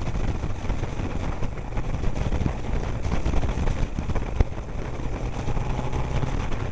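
Motorcycle running at road speed, a steady low drone under noisy rush.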